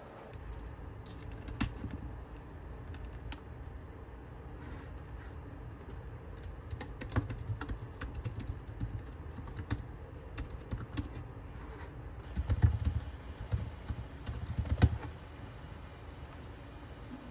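Typing on a laptop keyboard: irregular key clicks, with a louder flurry of keystrokes in the last third.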